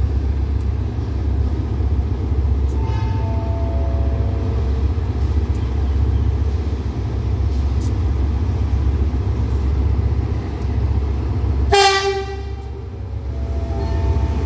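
GEA-class diesel-electric locomotive rumbling steadily as it draws into the station, giving one short horn blast about twelve seconds in. A four-note descending station chime plays about three seconds in and again near the end.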